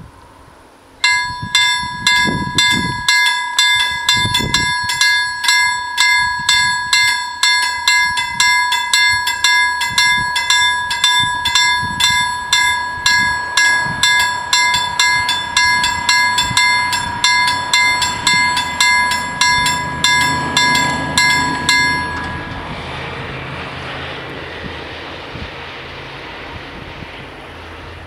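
Level-crossing warning bells ringing at about two strikes a second, each a clear ringing tone with several overtones, while the barriers lower. The bells stop about twenty seconds in, leaving a rising rumble of an approaching train.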